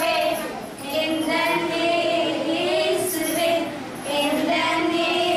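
Girls' voices singing a song in sustained, held phrases, with short breaths between phrases about a second in and again about four seconds in.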